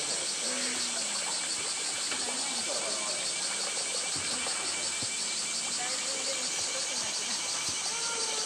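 A steady, high-pitched cicada chorus with a fast, even pulse.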